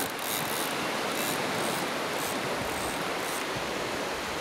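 Steady rush of surf and wind. Over it, faint short high-pitched spurts several times in the first three seconds or so, from a big conventional fishing reel being worked against a hooked shark.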